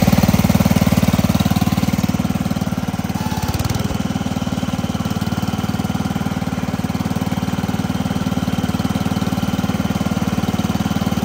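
Sears Suburban 12 garden tractor's engine idling steadily with an even, rapid exhaust beat. It gets a little quieter about two seconds in.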